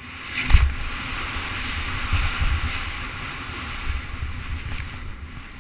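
Wind rushing over a helmet camera's microphone while a mountain bike rattles down a rough dirt trail at speed, with a hard thump about half a second in.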